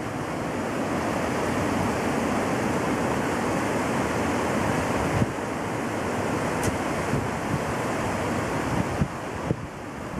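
The River Calder in flood, rushing steadily, with wind buffeting the microphone. A few soft knocks come in the second half.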